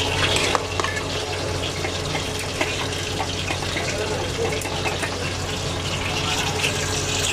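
Chickpeas boiling hard in a pot of water, a steady bubbling and seething with small pops and ticks.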